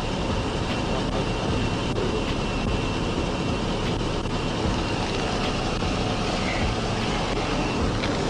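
Steady vehicle rumble with no breaks, and a faint high whine above it.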